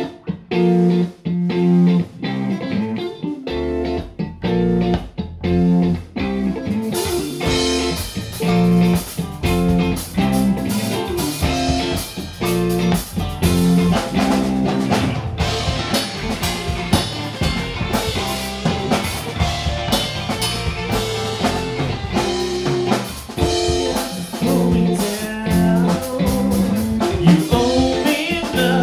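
Live rock band playing. A repeating electric guitar riff opens, the bass guitar comes in about three and a half seconds in, and the drum kit with cymbals joins about seven seconds in, after which the full band plays on.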